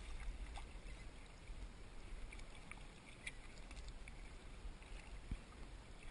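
Kayak paddle strokes in calm water: faint, scattered splashes and drips from the blade and water lapping at the hull, over a low steady rumble.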